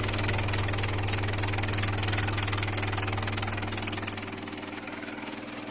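ATB200 trough-type vibratory finishing machine running: a steady deep hum from its vibration motor with a fast rattle of the media in the trough. The hum weakens about four seconds in.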